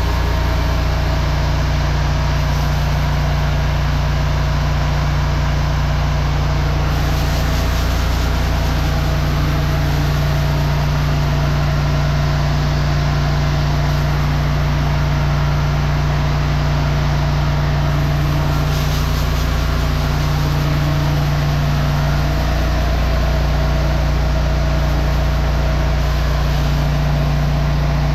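High-pressure drain jetter's engine running at a steady drone, with the hiss of its wash-down wand spraying water across a concrete floor.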